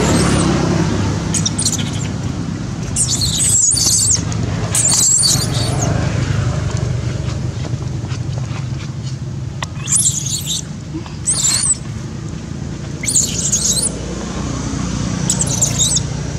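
Baby long-tailed macaque squealing: about seven short, high-pitched, wavering cries spread out over several seconds, over a steady low rumble.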